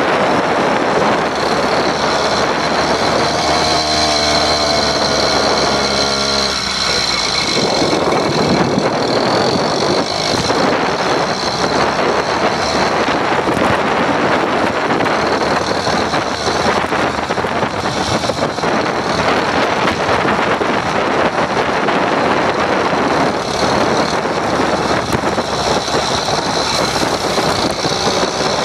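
Small gasoline engine of a Skyhawk-kit motorized bicycle running steadily under way, mixed with road and wind noise; a clear engine pitch comes through for a few seconds early in the ride.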